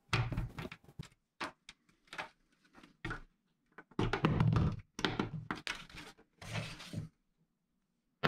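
Plastic cartridge display board being handled, with irregular knocks and clatter as brass rounds are pushed out of its clips and tip over inside the case.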